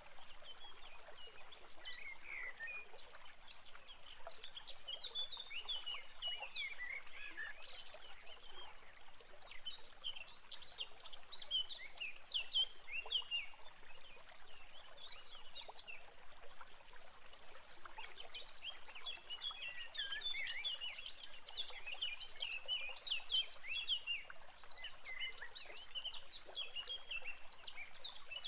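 Rapid, faint, high crackling chirps from inside a great tit nest box where eggs are hatching, coming in bursts over a steady hiss.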